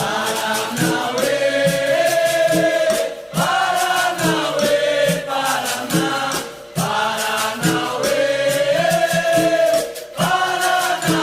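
Capoeira roda chorus: a group of voices singing the response in long held phrases, over a steady clicking percussion rhythm.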